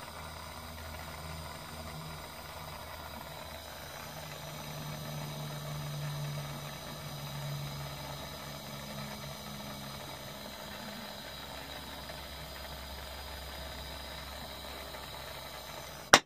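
Small gas torch with a number three tip burning with a steady hiss while heating silver bezel caps for soldering. It cuts off after a click near the end.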